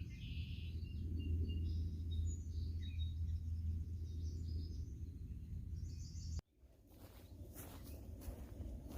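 Small birds chirping over a steady low rumble of outdoor noise. About six and a half seconds in the sound cuts out abruptly and comes back with scattered crackles and more bird calls.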